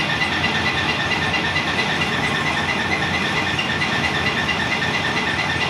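Stone crusher plant running: the jaw crusher and conveyors give a steady, loud machine noise with a fast, even, repeating clatter.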